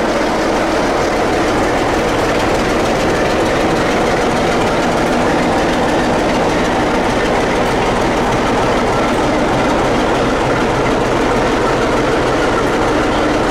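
Class 47 diesel locomotive's Sulzer twelve-cylinder engine running at a steady note as the loco and its train move slowly past along the platform.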